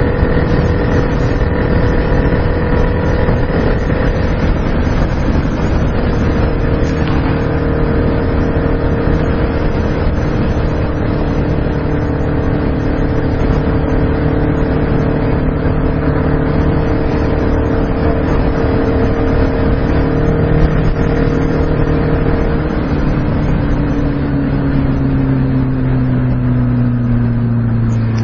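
Kawasaki Ninja ZX-6R 636's inline-four engine running under way at a fairly steady speed, its pitch falling gradually over the last few seconds as the bike eases off.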